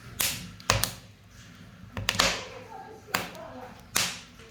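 Wood fire in a wood-burning stove crackling: sharp pops come every half second to a second over a low, steady rumble from the burning.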